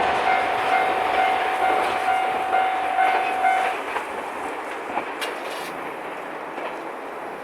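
Japanese level-crossing warning bell ringing in a rapid repeating electronic tone, cutting off about three and a half seconds in, over the fading rumble and wheel clatter of a KiHa 261 series diesel express train passing over the crossing.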